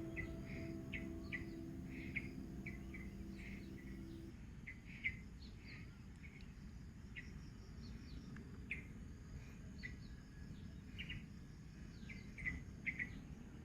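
Small birds chirping in many short, quick calls over a low, steady background rumble. A held ambient music tone fades out about four seconds in.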